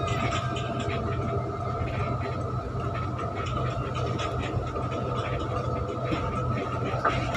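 Intercity bus cabin noise while driving: the engine's steady low drone with a thin steady whine above it, heard from up front beside the driver.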